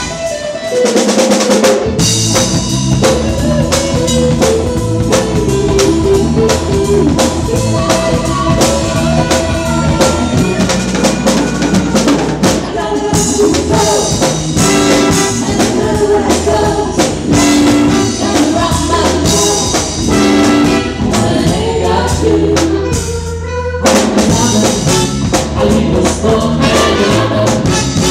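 Live soul-funk band playing an instrumental passage: a brass section of trumpets, trombone and saxophone over a drum kit with a steady beat.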